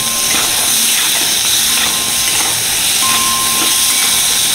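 Onions and potato pieces sizzling in hot oil in a steel wok on a gas stove, a steady frying hiss, with the spatula scraping as they are stirred.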